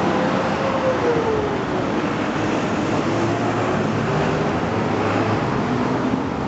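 A passing vehicle's whine falling in pitch over steady traffic noise.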